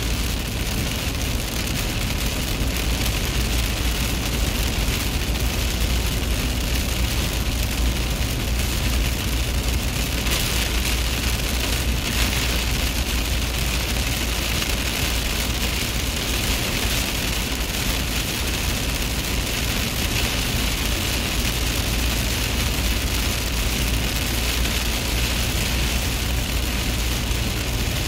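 Steady low rumble and even hiss of a vehicle driving at speed, heard from inside the cabin.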